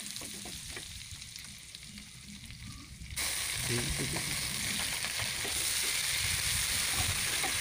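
Onion and garlic paste frying in hot oil in a kadai, sizzling, with a spatula scraping and stirring against the pan. The sizzle jumps suddenly louder about three seconds in and stays loud.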